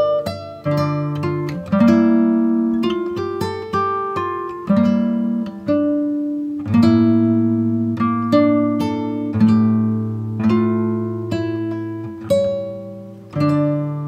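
Background music on guitar: plucked notes and chords, each one struck sharply and left to ring and fade, about one or two a second.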